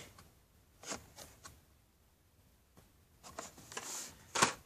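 Carded Hot Wheels cars in plastic blister packs being handled: scattered light clicks and crinkles of plastic and cardboard, growing busier and louder near the end.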